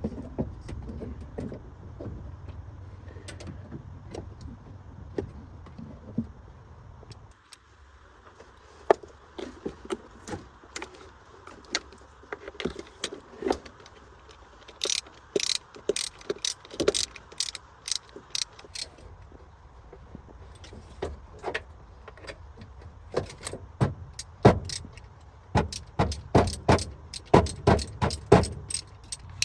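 A car engine running with a low rumble cuts off suddenly about seven seconds in. It is followed by a string of sharp metallic clicks and knocks from tools working on the car, coming faster near the end.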